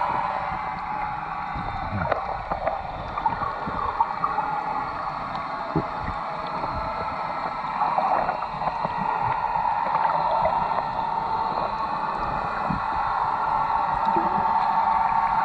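Muffled underwater sound picked up by a submerged camera: a steady drone with a faint hum that grows stronger about halfway through, and scattered faint clicks and crackles.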